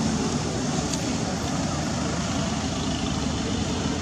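Steady low rumbling background noise with a faint hiss, even throughout and with no distinct events.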